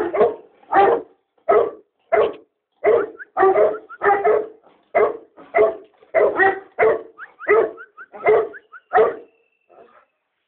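A large dog barking over and over, about fifteen barks at a steady pace of one or two a second, stopping about nine seconds in.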